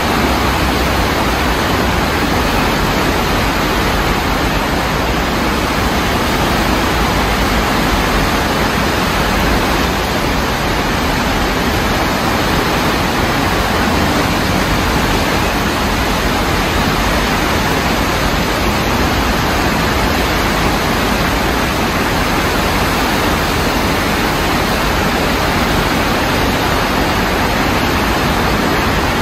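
Fast brown floodwater rushing steadily over a submerged road after heavy rain, a loud, even roar of moving water.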